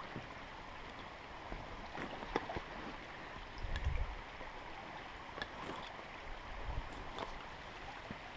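Stream water running steadily, with a few faint clicks and a brief low rumble about four seconds in.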